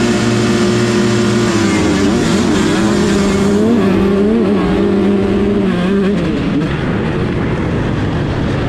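125cc two-stroke motocross bike engines held at steady high revs on the start gate, then accelerating hard off the line about a second and a half in, the engine note climbing and dropping with each gear change.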